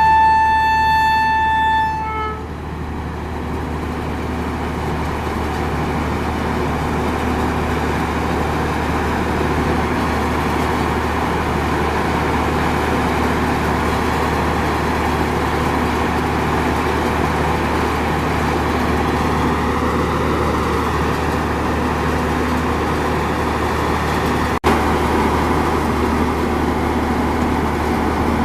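Indian Railways locomotive horn sounding one steady blast that cuts off about two seconds in, followed by the steady rumble of the express train's coaches running along the platform. The rumble drops out for an instant near the end.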